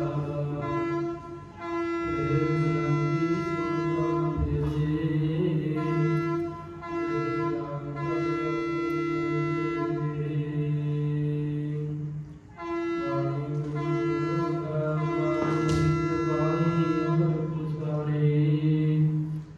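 Sikh devotional music with long held notes at a steady low pitch, each broken off by a short pause every few seconds. A single sharp click sounds about three-quarters of the way through.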